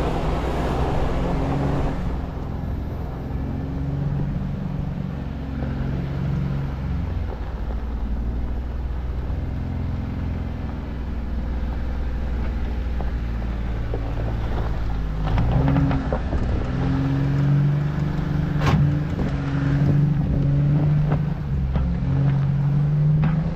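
Jeep engine running at low revs while crawling a dirt trail, its pitch rising and falling with the throttle. It pulls harder and louder after about fifteen seconds. One sharp knock comes about three-quarters of the way through.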